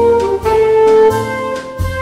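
Instrumental background music with a steady beat: held melody notes over a bass line.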